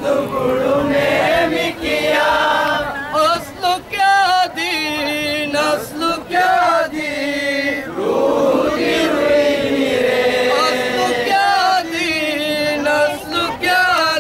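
A group of male voices chanting a song together in unison, with double-headed hand drums beating along.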